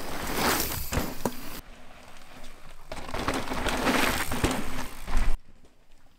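Mountain bike riding past on a dirt trail: tyres rolling and scrabbling over dirt, with a few sharp knocks from the bike over roots and bumps. It comes in two passes, the second ending in a loud thump, and then cuts off suddenly.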